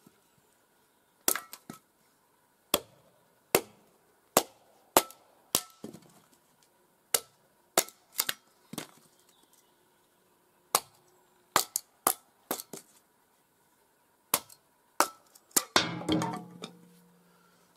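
A series of sharp chopping strikes, about twenty, spaced irregularly a half second to two seconds apart, followed near the end by a longer rattling, scraping burst.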